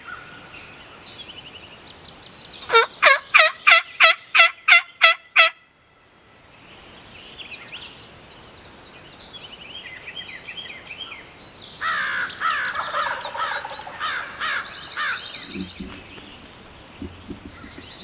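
A run of about nine loud turkey yelps, roughly three a second, with songbirds singing around them. A denser, lower run of calls follows later.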